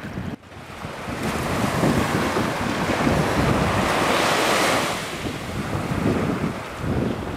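Wind buffeting the microphone over the wash of small sea waves, after a brief dropout about half a second in; the wind swells louder for a few seconds in the middle, then eases.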